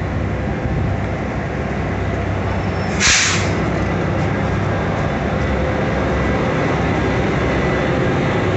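Commuter train running, a steady low rumble of the moving train, with one short, sharp hiss about three seconds in.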